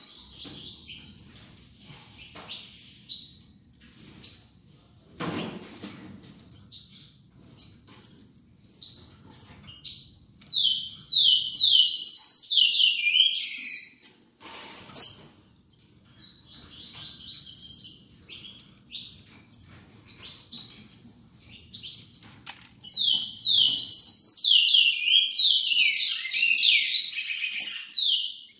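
Caged songbirds, a female canary and a green-winged saltator (trinca-ferro) fledgling, chirping: rapid runs of high, downward-sliding chirps, loudest in a long burst in the middle and again near the end. A brief thump about five seconds in and another around fifteen seconds.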